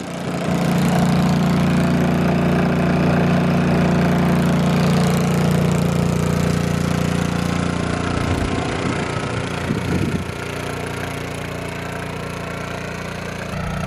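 Honda EU2000i inverter generator running steadily under a 1200-watt space-heater load, a constant engine hum. About ten seconds in the sound gets a little quieter and then holds steady.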